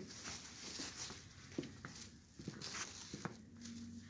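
Footsteps and shoe scuffs on a hard floor as someone walks slowly, with handling rustle from a handheld camera. A faint low hum runs underneath, and a second steady tone joins about three seconds in.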